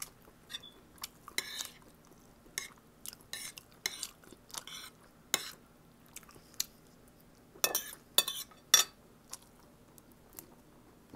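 Spoon clinking and scraping on a plate, with eating and chewing: a string of short, irregular clicks and a few louder scrapes, the loudest close together late on.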